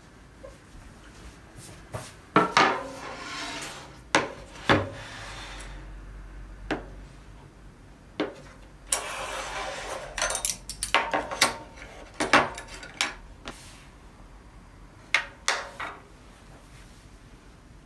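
Dishes and utensils being handled while preparing food: a scattering of sharp clinks and knocks, with a longer scraping, rubbing stretch about nine seconds in.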